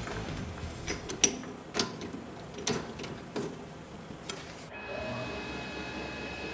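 Metal clicks and knocks as a chuck key tightens the three-jaw chuck of a Tormach CNC lathe on an aluminium bar. About five seconds in, the lathe spindle is running, with a steady high whine over a low hum.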